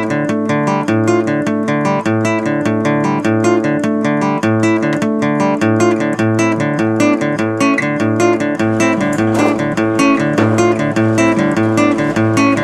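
Background music: acoustic guitar playing a quick, steady picked rhythm.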